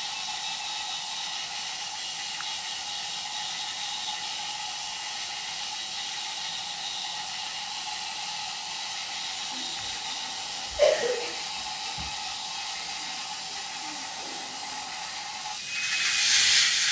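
Small motor-driven chain lift of a K'nex toy roller coaster running steadily with a constant hum and whir. A brief knock comes about eleven seconds in, and a louder rushing noise near the end.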